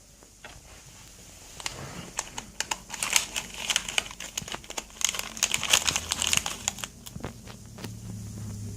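Rapid crinkling and clicking of small seashells and their packaging being handled and picked through, dense from about two seconds in until about seven seconds in.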